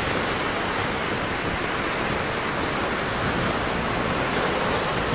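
Small surf waves breaking and washing up the sand at the shoreline: a steady hiss that swells in just before and holds evenly.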